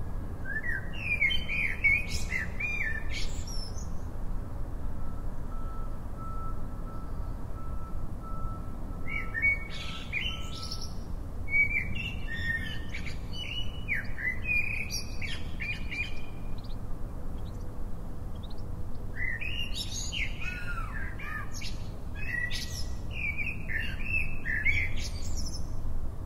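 A bird singing in three bouts of quick, varied chirping phrases over a steady low rumble.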